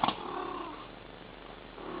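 Mother cat making a short, soft trilling call to her kittens, about half a second long and falling in pitch at the end, after a brief knock at the very start.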